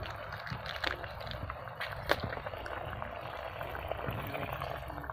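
Pot of stingray with coconut milk boiling over a wood fire: a steady bubbling hiss with scattered small pops and crackles.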